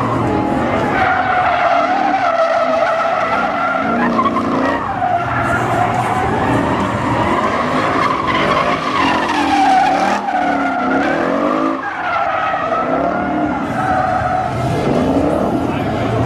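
Ford Mustang drifting, its rear tyres squealing in long, wavering screeches that bend up and down in pitch without a break.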